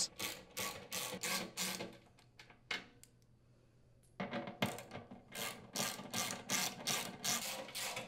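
Ratchet wrench with a 3/8-inch socket backing out the blower motor's bracket mounting screws: runs of light ratchet clicks, about three or four a second, broken by a near-silent pause of about two seconds in the middle.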